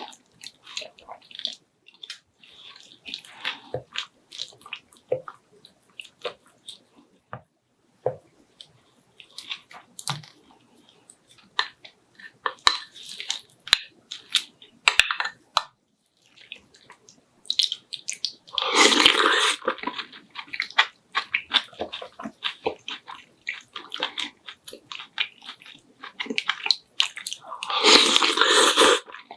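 A person eating close to the microphone, chewing and crunching, with many small mouth and utensil clicks. The meal is chueotang (loach soup) and crunchy stuffed cucumber kimchi. Two louder, longer stretches of noise come about two-thirds of the way in and again near the end.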